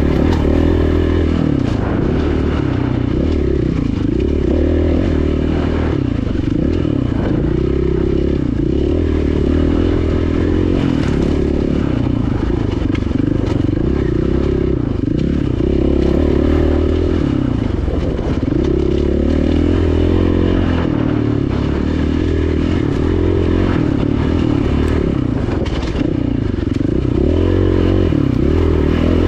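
KTM 500 dual-sport motorcycle's single-cylinder four-stroke engine revving up and down over and over as the throttle is opened and closed, with occasional clattering.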